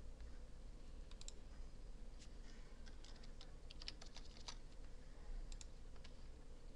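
Faint typing on a computer keyboard: a scattered run of keystrokes over a few seconds, with a low steady hum underneath.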